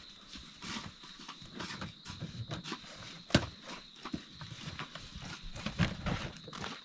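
Camping gear being unloaded from the open boot of an SUV: scattered knocks, bumps and rustles of bags and boxes, with one sharp knock about three and a half seconds in.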